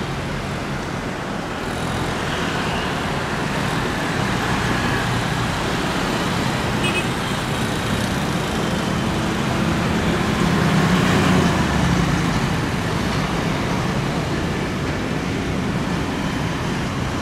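Jet engines of an Airbus A320 airliner running as it rolls along the runway: a steady roar that grows louder a couple of seconds in, peaks a little past the middle, then eases slightly.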